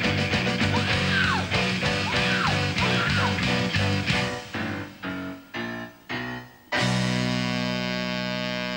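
Rock band with electric guitar, drums and saxophone playing live. About halfway through the full-band playing breaks into several short stabbed chords about half a second apart, then lands on one held chord that rings out and slowly fades.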